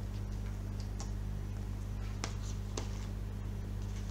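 A few light clicks and paper rustles as a small oracle-card guidebook is handled and its pages leafed through, over a steady low electrical hum.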